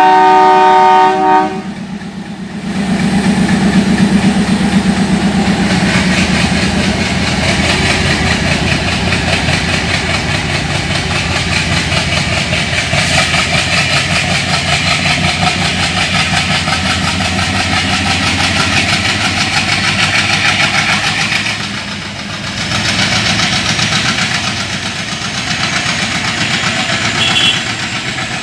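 A battery-powered toy train set running on plastic track: a steady motor whir mixed with wheels clattering over the rail joints. It follows a brief electronic train-horn sound in the first second and a half.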